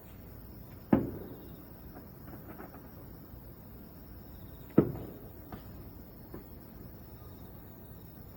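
Fireworks shells bursting: two sharp booms about four seconds apart, each trailing off, with a few fainter pops between them.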